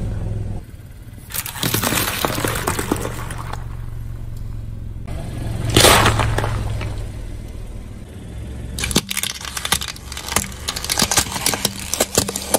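A car tyre rolling over and crushing objects: crackling, then a loud wet crunch about six seconds in as it bursts a pile of bananas and a soft red-and-green object. From about nine seconds on comes a rapid run of sharp cracks and snaps as it crushes plastic disposable lighters, with a low steady engine hum underneath.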